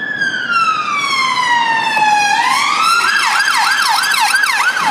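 Police car siren: a slow wail falling in pitch that switches a little over two seconds in to a fast yelp, about three rising sweeps a second.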